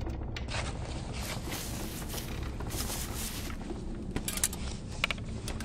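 Soft rustling and scattered clicks over a low steady hum, with a few sharper clicks about four to five seconds in.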